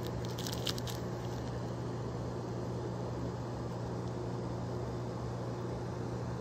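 A steady low machine hum with a faint hiss throughout. In the first second, a few short crinkles and clicks from the plastic zip bag of resin diamond-painting drills being handled.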